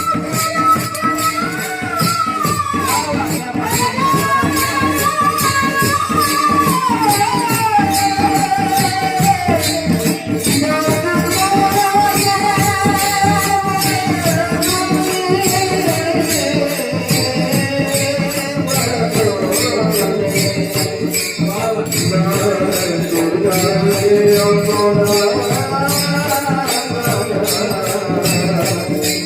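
A male Warkari devotional singer singing an abhang tune in a high voice, with long held notes that slide and step down over many seconds, over the steady, fast jingling beat of hand cymbals (taal).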